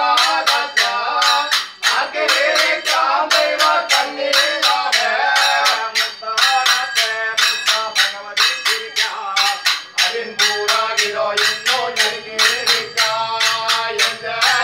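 Male voices singing a thottam pattu, a Kerala temple ritual song, in a chanting style, over a steady percussion beat of about three strokes a second.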